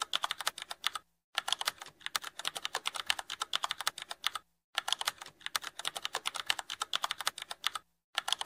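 Computer keyboard typing: a rapid run of key clicks, broken by three short pauses.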